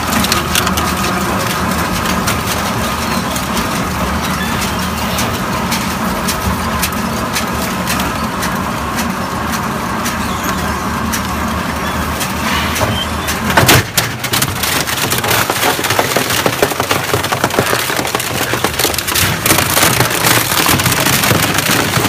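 Industrial shear shredder with toothed rotary blades running with a steady motor hum, tearing and crushing the metal and plastic cabinets of scrap refrigerators and freezers with constant cracking. A loud crack comes a little past halfway, and after it the cracking is denser and louder.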